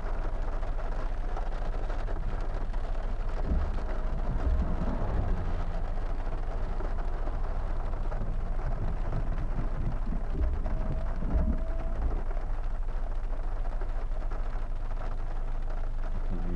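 Steady rain falling on a car, with a constant low background noise underneath.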